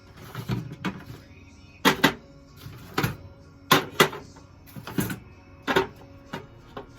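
Small HVAC electrical parts (contactors, a pressure switch) and plastic storage bins clacking as they are handled and set down: a series of sharp, irregular knocks a second or so apart.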